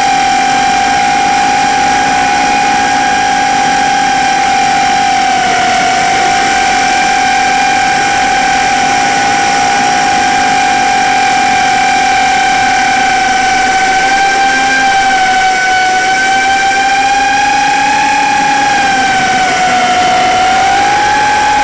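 A 4-inch FPV quadcopter's 1408 brushless motors and propellers whine steadily in flight. The pitch dips slightly now and then as the throttle eases, about five seconds in and again near the end.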